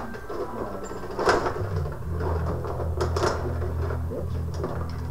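Rod hockey table game in play: the rods and plastic players clack and rattle as they are spun and slid, with a few sharp knocks, the loudest about a second in and around three seconds in. A low steady hum comes in under it near the middle.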